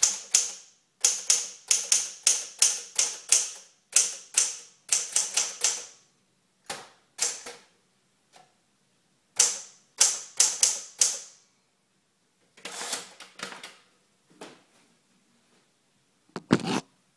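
Smith-Corona Clipper portable typewriter being touch-typed: runs of quick, sharp keystrikes with short pauses between them. There is a heavier clatter near the end.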